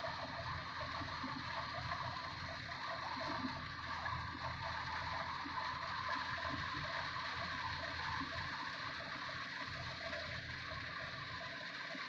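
Kubota DC-105X combine harvester running as it cuts rice some way off: its diesel engine and threshing machinery make a steady, even drone.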